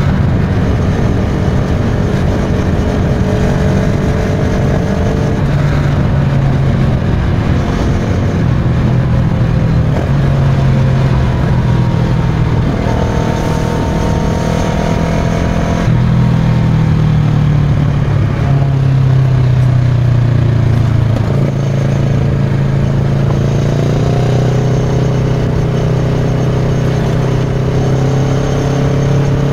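Kawasaki Versys 650's parallel-twin engine running through a Giannelli aftermarket exhaust while riding, with rushing wind noise. The engine note drops as the bike slows, then climbs again near the end as it picks up speed.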